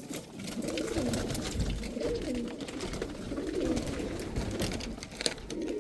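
Domestic pigeons cooing in their loft, several birds calling over one another in low rolling coos, with a few sharp taps, the loudest near the end.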